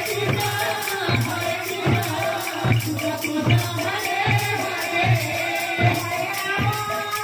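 Kirtan devotional music: a two-headed hand drum beating a steady rhythm, small hand cymbals striking on the beat, and voices singing over them.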